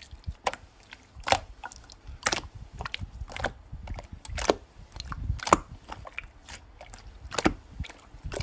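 Scattered light taps and clicks, one or two a second, at an uneven pace, with no voice.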